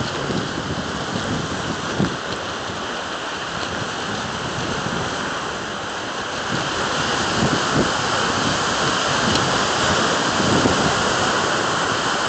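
Surf breaking and washing onto a rocky shore: a steady rushing hiss that grows louder past the middle.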